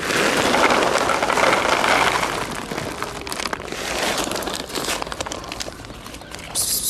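Dry cat kibble pouring into a foam tray: a dense rattle of pellets for about two and a half seconds, then scattered clicks and rustles.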